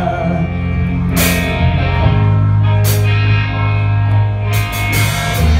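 Live rock band playing an instrumental stretch between vocal lines: electric guitars and bass over a drum kit, with several cymbal crashes.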